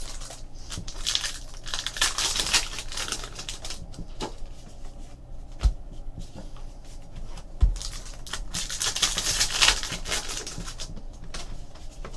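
Trading cards being flipped and slid across one another by hand, in two rustling stretches, with a couple of dull knocks as cards are set down on the table.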